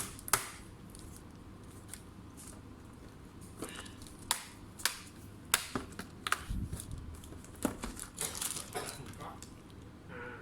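Hands handling laptop parts and packaging: scattered sharp clicks and taps with some crinkling of plastic.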